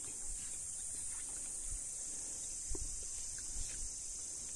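Steady high-pitched drone of insects, with a few soft low knocks of handling about halfway through.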